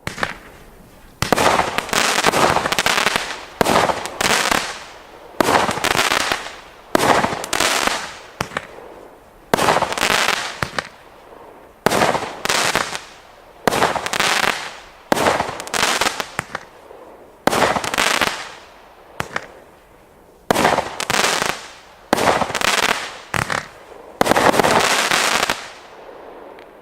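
Cracker Jack firework by Evolution Fireworks firing a rapid series of about fifteen shots, one every one to two seconds. Each shot bursts into a dense crackle that lasts about a second.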